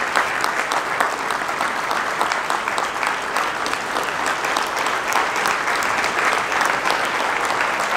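Audience applauding steadily: many hands clapping at once, with no let-up.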